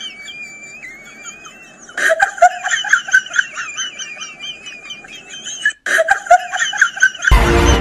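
Laughter in quick, high, repeated pulses, breaking off for a moment and starting again, with faint whistly sounds before it. It ends in a short, loud burst of noise.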